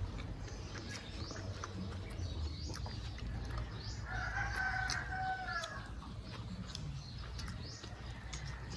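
A rooster crows once, a single call of about two seconds starting about four seconds in, over faint, scattered chirping of small birds.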